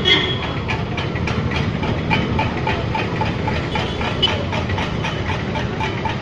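A steady low engine-like rumble with a fast, regular ticking over it, about three ticks a second.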